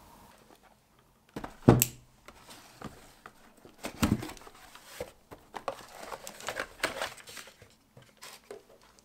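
Handling noise from unboxing a PLA filament spool: a sharp knock a little under two seconds in as the cardboard box meets the table, then small knocks, flap rustles and plastic crinkling as the box is opened and the vacuum-sealed spool bag is lifted out.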